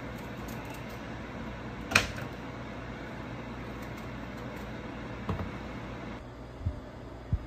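Steady background hum with a sharp click about two seconds in, then a few short low knocks near the end as a knife cuts strawberries by hand and the pieces are set down on plastic plates.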